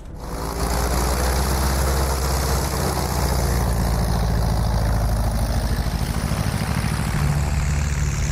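Propeller engine of a light ski-equipped bush plane running at full power close by as it heads off for takeoff, with the rush of its prop blast. It comes up sharply at the start, then runs steady and loud.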